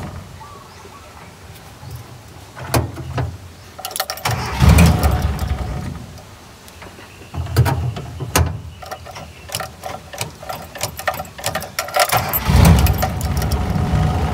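Cold Toyota 4K four-cylinder carburetted engine running at a very low idle, revved about four times in short blips as the accelerator pedal is pressed by hand.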